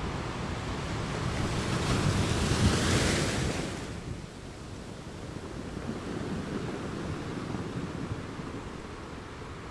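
Ocean surf: a rushing wash of waves swells to its loudest about three seconds in, falls away sharply a second later, and goes on as a softer wash.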